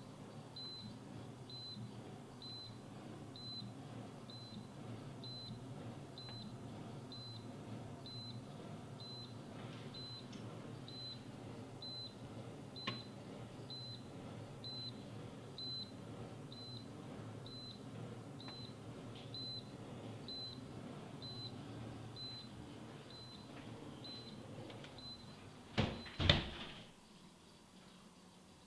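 Whirlpool ARC4020 refrigerator's electronic alarm giving a short high beep about once a second over the steady low hum of the running fridge. Near the end two loud knocks come, and after them the beeping and the hum stop.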